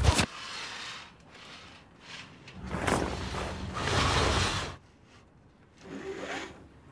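Sailboat sail flapping and rustling in the wind, loudest about three to five seconds in, with wind rumbling on the microphone. There is a brief swish at the start, and a short creak of lines working through a mast fitting near the end.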